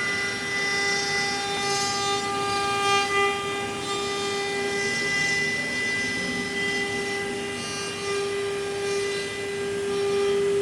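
CNC router's HSD tool-change spindle running at speed with a steady high whine, as the bit cuts wood with a hiss that swells and fades.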